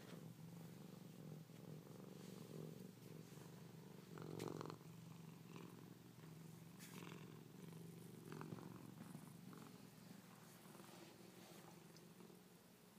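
Siamese cat purring close to the microphone, a steady low purr that pulses with its breathing. There is one brief louder sound about four and a half seconds in.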